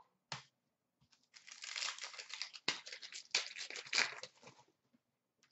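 Crinkling and rustling of a trading card pack wrapper and cards being handled, with a few sharp snaps among it, after a short click about a third of a second in.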